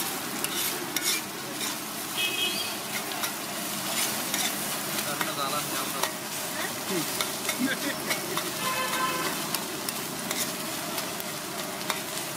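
Metal spatula scraping and clacking against a large flat iron griddle as a heap of food is stirred and turned, with many sharp clicks over a steady frying sizzle.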